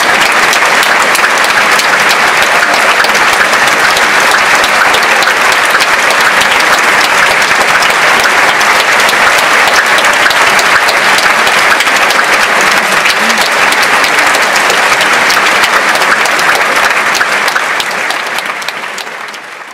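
Large audience applauding steadily, many hands clapping at once; the applause fades out near the end.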